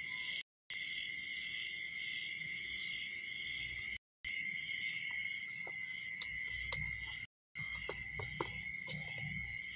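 Steady, high-pitched chirring of night insects, cutting out to silence three times for a fraction of a second. A scattering of faint clicks and taps in the second half.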